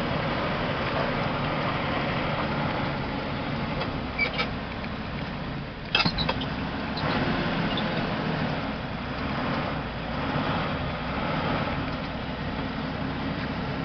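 Truck engine running with rumbling road noise heard from inside the cab. There are two sharp clicks about four seconds in and a louder knock about six seconds in.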